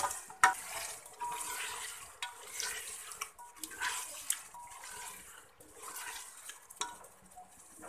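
Spatula stirring raw chicken pieces into hot spiced oil in an aluminium pressure-cooker pot, with scraping and a few sharp knocks against the metal over a soft sizzle.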